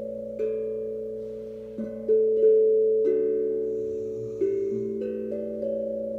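Steel tongue drum played slowly, single notes struck about once a second, each ringing on and overlapping the next.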